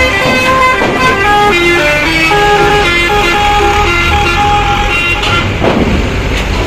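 A bus's engine running as it pulls past, under loud music with a stepping melody.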